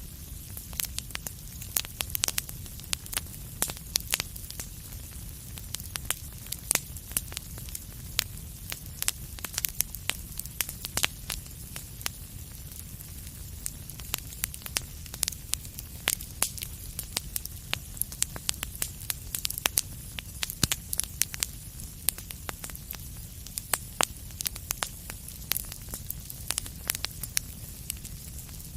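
Wood fire crackling in a fireplace: frequent, irregular sharp snaps and pops over a steady low rumble.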